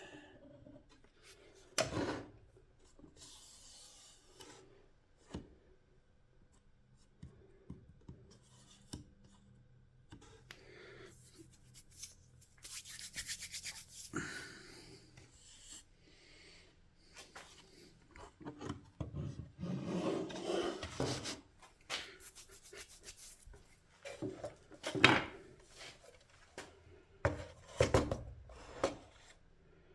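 Hand work on a bench: parts being rubbed and scraped against each other, with scattered small knocks and taps. There is a quick, finely ticking scrape about halfway through, and louder rubbing and clunks in the last third.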